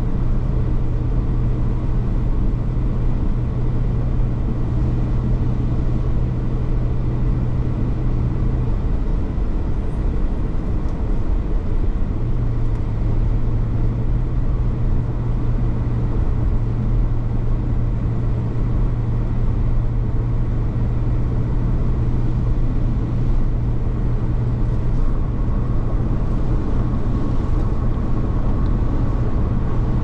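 Steady road and engine noise inside a moving car, tyres running on wet pavement, with a constant low hum that drops out briefly about nine seconds in and comes back slightly lower about three seconds later.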